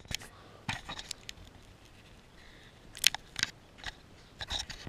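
A few light clicks and knocks on a kayak, irregularly spaced, with a pair about three seconds in and a short cluster near the end.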